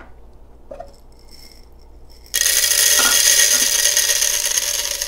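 Whole coffee beans poured into an espresso grinder's hopper: a dense rattle that starts a couple of seconds in, lasts about three seconds and tapers off at the end.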